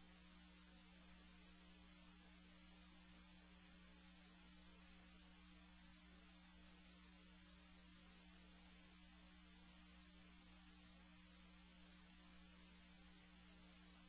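Near silence: a faint steady hum with low hiss, unchanging throughout.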